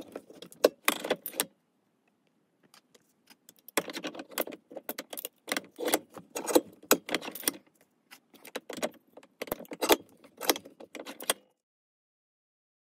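Irregular metallic clicks and clinks of steel parts and a bench vise being worked as steel ball bearings are pressed into hex nuts between soft jaws, coming in quick runs and stopping near the end.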